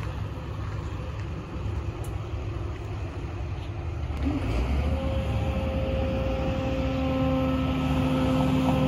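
Pickup truck engine running as the truck maneuvers a gooseneck trailer loaded with pier sections. It grows louder about halfway through, where a steady whine joins the low rumble.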